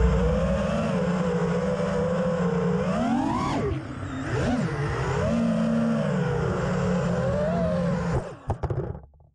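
The four brushless motors and three-blade props of a 5-inch FPV racing quad (RCinPower Smoox 2306.5 2580kv motors, Gemfan 5.1-inch props) whine in flight, heard from its onboard camera. The pitch climbs steeply about three seconds in on a throttle punch, drops and swoops, then holds steady. The sound stutters and cuts out near the end.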